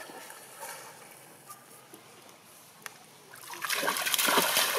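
Water sloshing and lapping as a macaque swims with her baby on her back, then a louder burst of splashing about three and a half seconds in.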